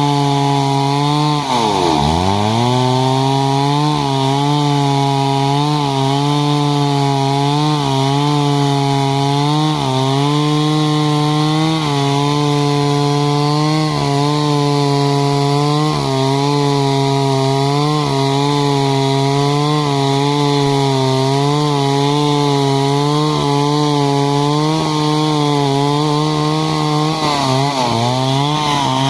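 Stihl MS 382 two-stroke chainsaw running at high revs while cutting wood, its engine note steady under load. About two seconds in the revs dip sharply and recover, and small dips in pitch recur as the chain bites.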